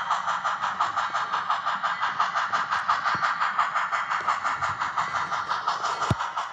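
HOn3 model steam train running, giving a steady, even beat of about five strokes a second. A single sharp knock sounds near the end.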